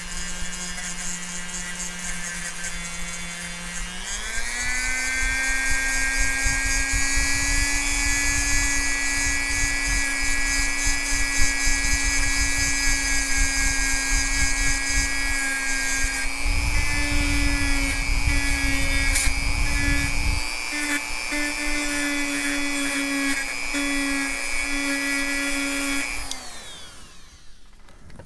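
Dremel rotary tool fitted with a brass wire brush wheel, its motor whining steadily and stepping up to a higher speed about four seconds in, while the brush scrubs the brass of an HO model locomotive's chassis and electrical pickups clean and scuffs them for soldering. The scratching of the brush on the metal is rougher for a few seconds past the middle, and the tool winds down near the end.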